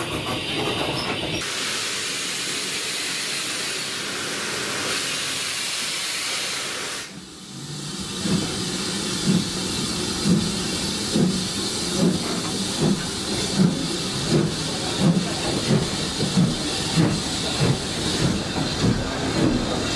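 BR Standard Class 4 2-6-4T steam tank locomotive. A loud hiss of steam cuts off sharply about seven seconds in. Then the engine starts away with regular exhaust beats, about one and a half a second and slowly quickening, with steam hissing around it.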